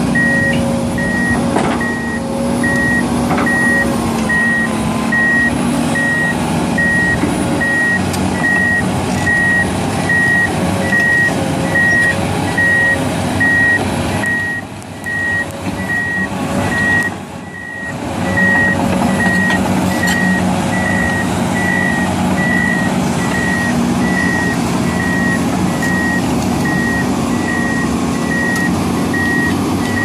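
Heavy diesel machinery running: a Komatsu crawler excavator and bulldozer, with a backup alarm beeping at an even, steady pace over the engine drone. The sound dips briefly a little before halfway.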